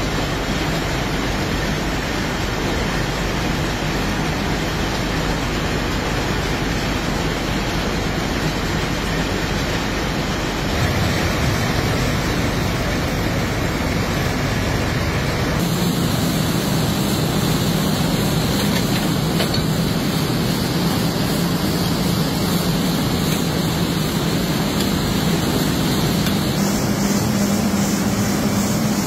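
Jute mill machinery running: a loud, steady mechanical din of fibre-processing machines. Its character shifts abruptly about 11 seconds in, again about 16 seconds in, and once more near the end.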